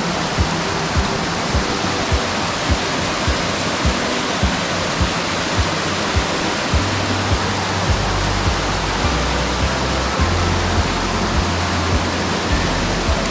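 Mountain stream water rushing steadily under background music with an even beat of a bit under two thumps a second; a sustained bass line comes in about seven seconds in.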